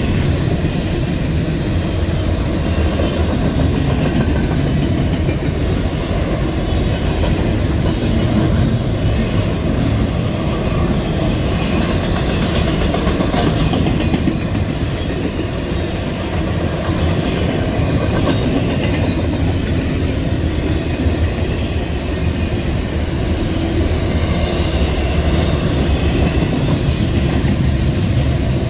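Intermodal freight train rolling past, its double-stack container cars and trailer flatcars making a steady rumble of wheels on the rails with occasional clacks.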